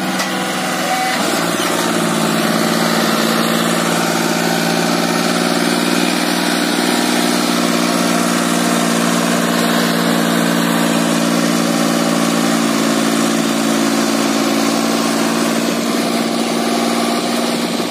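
John Deere 5055 tractor's diesel engine working hard as it pulls a heavily loaded sugarcane trolley. The engine note steps up about a second in, then runs loud and steady.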